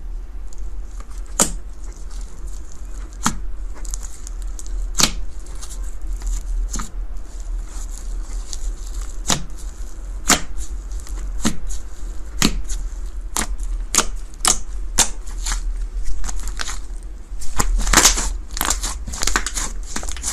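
Slime being pressed and stretched, with irregular sharp crackles and pops about once a second that come thicker near the end, over a steady low hum.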